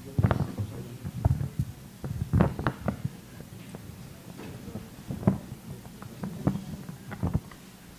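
Handling noise on a microphone: about fifteen irregular low thumps and knocks, the loudest about two and a half and five seconds in.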